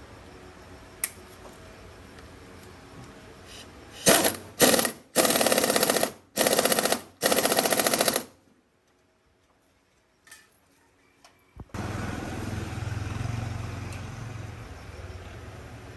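Pneumatic impact wrench firing in five short rattling bursts, the last three longer than the first two. It then stops, and a few seconds later a steady low hum starts.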